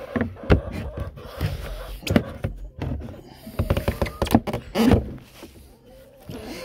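Knocks and thunks of a wooden chicken-coop door with a metal strap hinge being handled and shut against its frame. There is a sharp thump about half a second in and a cluster of knocks from about three and a half to five seconds in.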